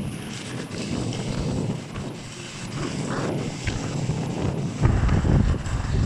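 Strong wind buffeting the microphone, a gusty rumble that hits harder near the end.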